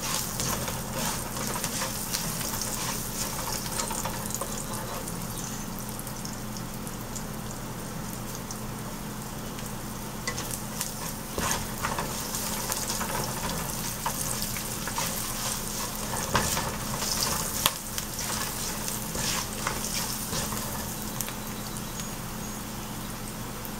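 Chopped garlic and cumin seeds sizzling in hot oil in a nonstick pan, browning lightly. A plastic slotted spatula stirs them, scraping and tapping against the pan now and then.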